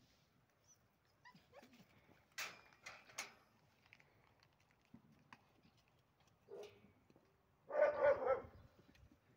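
A German Shepherd puppy gives one short bark near the end, with a briefer, lower yelp about a second before it. Earlier there are a few sharp clicks.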